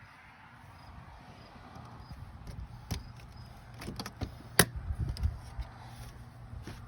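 RV entry door swung open and caught by a newly installed door holder latch: scattered clicks and knocks, the loudest a sharp clack a little past the middle.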